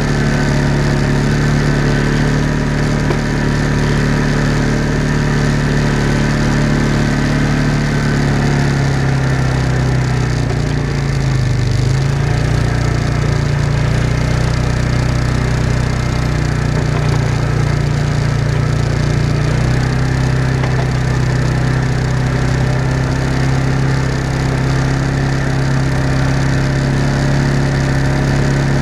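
Off-road vehicle's engine running steadily as it drives along a dirt trail, its pitch wavering and dipping around ten seconds in, then settling again about twenty seconds in.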